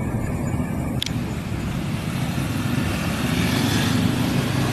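Diesel locomotive engine rumbling, joined by passing motorcycle engines that grow louder near the end. A single click about a second in.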